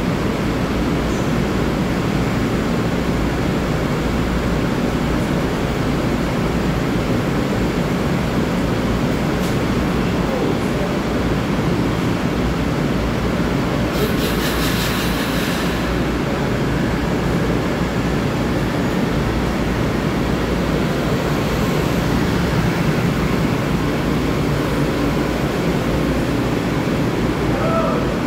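LIRR M3 electric multiple-unit train standing at the platform with a steady loud hum of its running equipment. About halfway through there is a short, high hiss as the doors close. Near the end a rising whine begins as the train starts to pull out.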